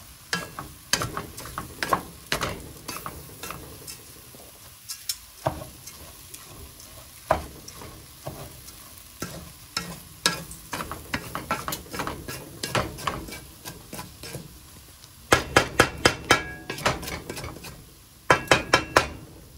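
A spatula stirring and scraping raw rice, Vienna sausage and corn around the bottom of a pot over high heat, with a sizzle underneath and many sharp clicks of the spatula against the pot. Near the end come two quick runs of louder strikes.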